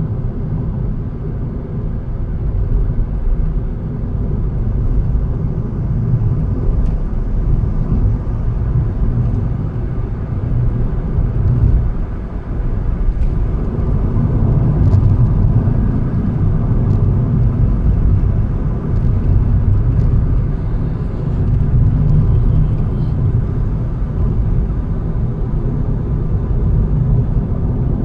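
Car driving along a road: a steady low rumble of engine and tyre noise that swells and eases a little, with a few faint clicks.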